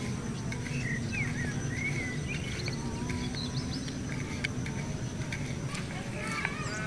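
Rural outdoor ambience: a steady high insect drone and scattered short bird chirps over a low steady hum. There are a few faint taps of a small kitchen knife on a wooden cutting board.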